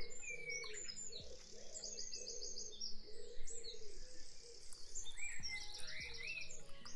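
Soft background music with birds chirping and trilling over it: quick high trills and short gliding calls over a gentle repeating pattern.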